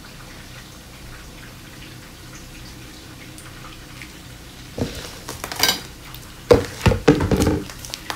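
A low steady hum, then from about five seconds in a run of knocks, bumps and rustling as a bag of couscous is picked up and handled at a kitchen counter.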